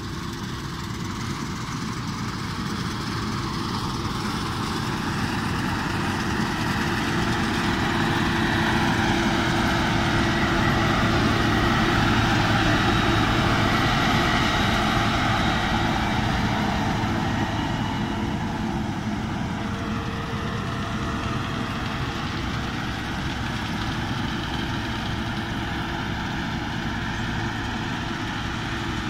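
Claas Lexion 470 combine harvester at work in a grain field, its engine and threshing machinery running steadily. The sound swells as it comes closest, a little before halfway, then fades as it moves off.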